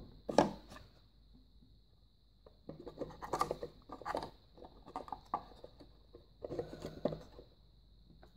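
Small wooden scale-model cabinets being handled and stacked: a knock just after the start, then several bouts of light clattering and scraping of wood on wood.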